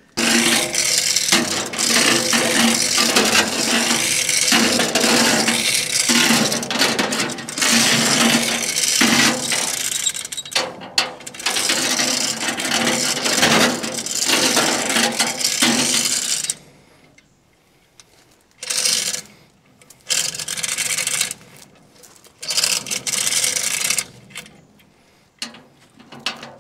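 Manual chain hoist being worked by its hand chain to lift a pickup bed: steel chain rattling and clinking through the hoist without a break for about sixteen seconds, then in a few short bursts.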